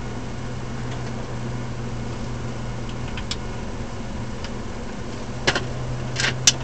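BMW 135i's N54 twin-turbo inline-six running at a steady pitch over tyre and road noise while driving. A few sharp clicks or knocks come in the last second or so.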